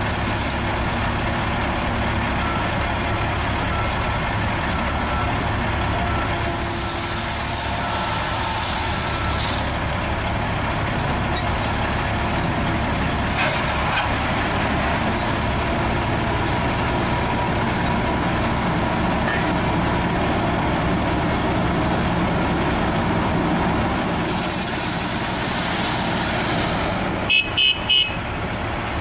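Heavy diesel engines of an excavator and a tri-axle dump truck running steadily, with two long hisses partway through and near the end. Just before the end a horn gives three short toots.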